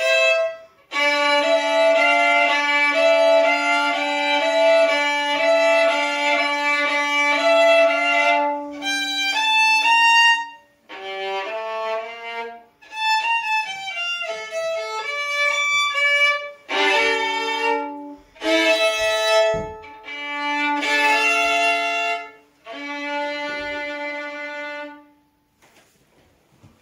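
Solo violin playing a Cossack dance tune: a long passage of moving notes over a steady held low drone note, then short phrases with brief pauses between them. The piece ends on a held note about 25 seconds in.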